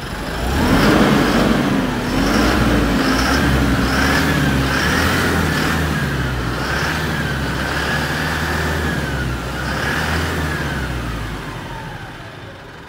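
Eicher Pro 3015 BS6 truck's diesel engine, heard at the exhaust tailpipe, revved up about half a second in and blipped up and down several times. It drops back toward idle near the end.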